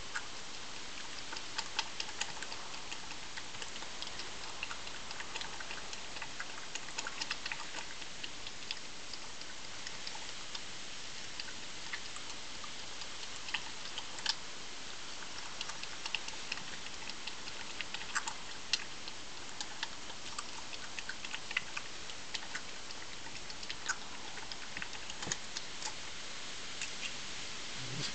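A badger eating, with irregular sharp crunching clicks as it chews food from a small tub, some coming in quick clusters, over a steady hiss.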